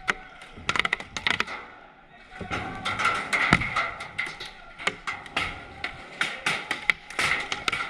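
Paintball markers firing: many sharp pops at irregular spacing, some in quick bursts, with paintballs smacking into cover.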